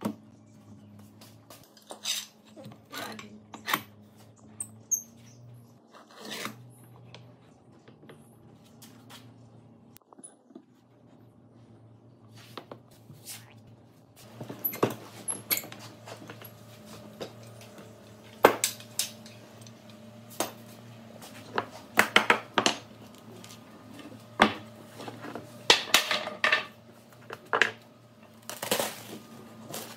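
Irregular sharp knocks and clatters, as of wooden pieces and tools being handled at a workbench, over a faint steady low hum. The knocks come sparsely at first and more often from about halfway through.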